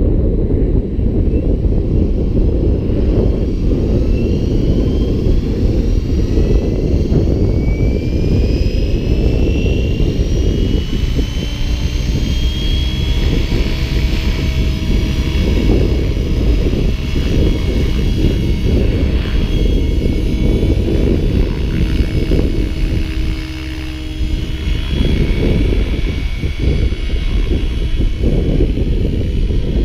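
GAUI X7 electric radio-controlled helicopter spooling up: a whine that rises in pitch over the first dozen seconds, then holds steady as the rotor reaches flying speed. Heavy wind noise on the microphone runs underneath.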